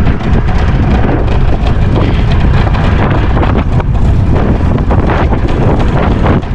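Wind buffeting the microphone with a loud, steady rumble, over light splashing of water as a gill net is hauled in over the side of the boat.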